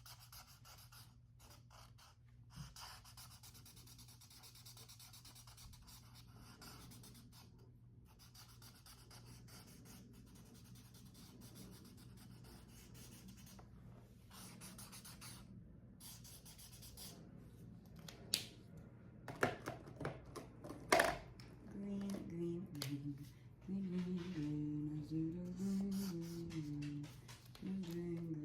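Felt-tip marker scratching across paper as a drawing is coloured in, with a few sharp clicks about two-thirds of the way through. Over the last several seconds a person hums a tune.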